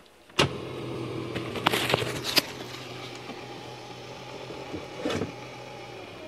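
Electric power seat motor of a 2002 Ford F250 Super Duty running with a steady hum that starts with a click about half a second in, while a flashlight wedged in the seat track blocks the seat. Knocks and rattles of handling come over it, around two seconds in and again about five seconds in.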